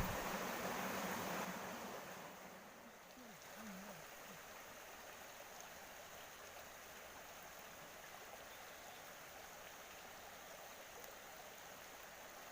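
Steady rush of stream water flowing over rocks below a small waterfall. It is louder for the first couple of seconds, then settles to a steadier, fainter level.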